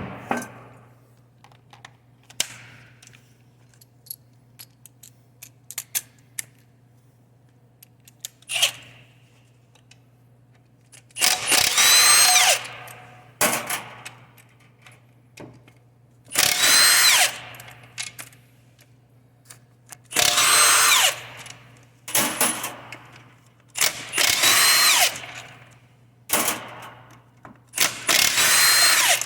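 Power drill/driver running out bolts on a 4L60E automatic transmission case in short runs of about a second each, repeated about eight times over the second half. Each run's whine drops slightly in pitch as it goes. Before that there are a few light clicks of tool and parts handling.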